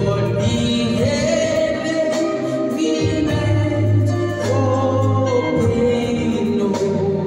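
A man singing a slow gospel worship song into a microphone, accompanied by held chords and a bass line on a Yamaha electronic keyboard.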